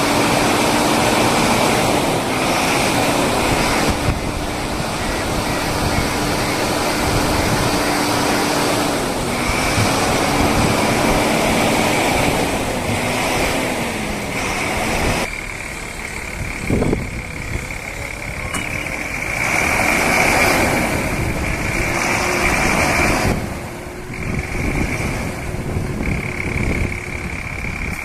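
Diesel engine of a backhoe loader working, its revs dipping and rising again and again as the hydraulics take load, with a steady high whine over the engine noise.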